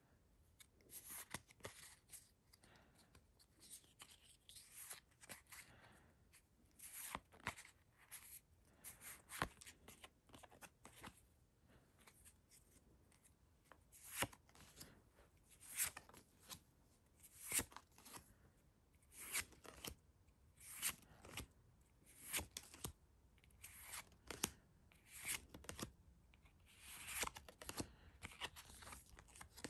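Pokémon trading cards being flipped through by hand one at a time, each card sliding off the stack with a short, faint swish, roughly one every one to two seconds.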